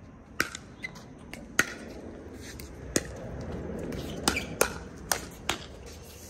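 Pickleball rally: paddles hitting a plastic pickleball with sharp hollow pocks, about seven hits, coming faster in a quick volley exchange at the kitchen line near the end.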